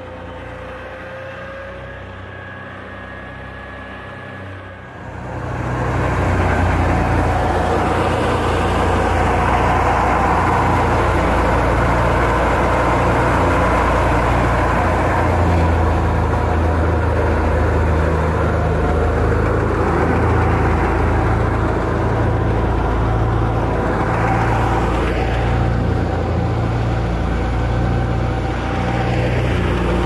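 An engine running steadily. About five seconds in, the much louder, steady mechanical noise of a wheat thresher at work takes over, with a low engine hum beneath it.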